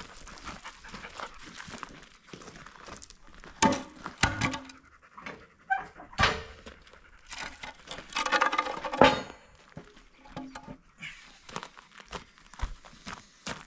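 A dog panting and moving about close by, mixed with scattered knocks and thuds, the loudest about nine seconds in.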